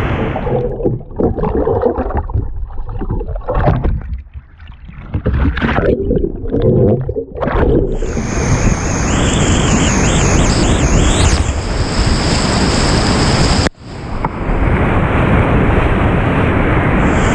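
Whitewater rapids rushing around a kayak. For the first several seconds the sound goes muffled and uneven as the camera is dunked under water, then the loud, full rush of the rapid comes back, broken once by a short drop near the end.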